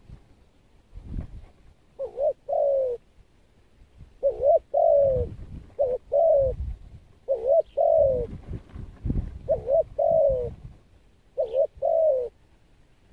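Spotted dove cooing: six calls in a steady series, each a short note followed by a longer, falling one.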